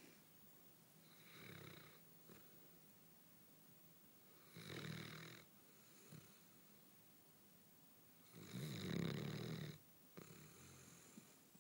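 Basset hound snoring in its sleep: slow, separate snoring breaths about every three to four seconds, the loudest one late on.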